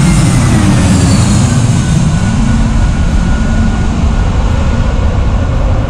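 AirAsia Airbus A320-family jet airliner passing low overhead on its landing approach: a loud engine rumble with a high whine that falls in pitch over the first couple of seconds as it goes by.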